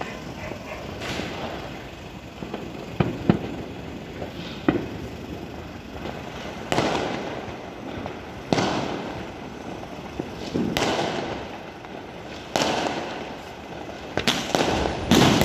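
Fireworks going off across the city: a bang every two seconds or so, each trailing off in a long echoing rumble, with a few sharper cracks. The loudest bursts come near the end.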